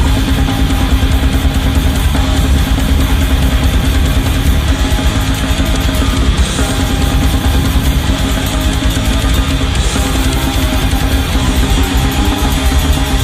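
Heavy metal song: heavily distorted guitars over fast, dense drumming, loud and unbroken.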